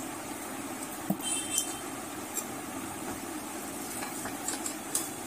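Light clicks and clinks as a plastic LED bulb housing with its B22 cap is handled against a metal punching die, the loudest a little over a second in and a couple more near the end, over a steady low hum.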